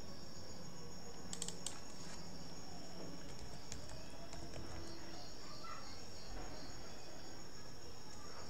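Quiet background with a steady high-pitched drone, and a couple of quick clicks about a second and a half in.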